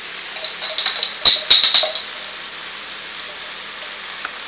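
Saltfish and peppers frying in oil in a pan, a steady sizzle. In the first two seconds comes a quick run of sharp, ringing clinks as a knife and a glass jar of jerk paste are handled.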